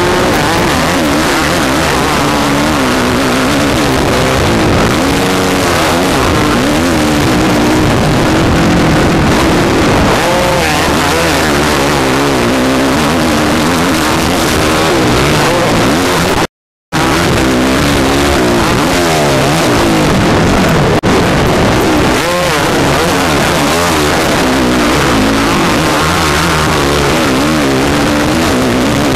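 A Honda motocross bike's engine heard from on board, revving hard and rising and falling in pitch as the rider races through the gears. The sound cuts out completely for a moment about two-thirds of the way through.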